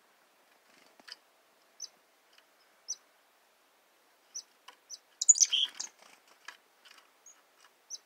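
Chickadee giving short, high chip notes, a few at a time, with a louder jumble of sound a little past halfway.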